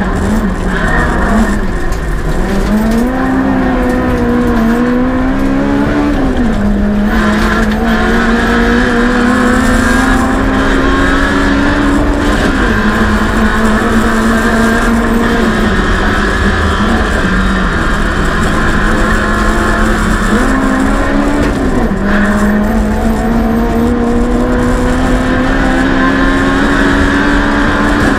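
Rally car engine under hard driving, heard from inside the cabin: the engine note climbs slowly through each gear and drops sharply at the shifts and lifts, about 2, 6, 12 and 21 seconds in.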